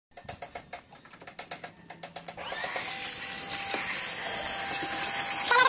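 A run of quick clicks, then about two and a half seconds in a wet-and-dry canister vacuum cleaner's motor starts up and runs steadily with a hissing whine.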